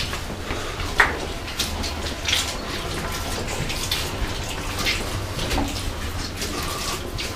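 Footsteps scuffing and crunching on the wet, gritty floor of a slate-mine tunnel, a step every half second to a second, over a steady low rumble.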